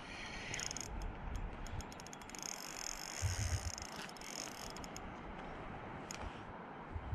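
Spinning reel being wound in while playing a hooked fish on a light rod, its mechanism whirring and clicking. The clicking is densest for the first few seconds, then thins to scattered ticks over a low rumble of wind and handling.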